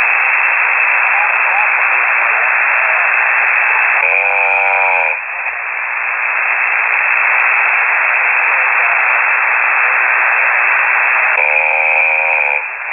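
A radio amateur snoring on the air, heard through a shortwave receiver: two buzzy snores about seven seconds apart, over steady radio hiss.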